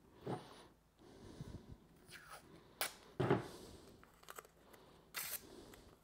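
Blue painter's tape being pulled off the roll and torn into strips: a few short rips and crackles, with sharp little clicks as the strips are handled against a plastic box. The loudest rip comes about three seconds in, another near the end.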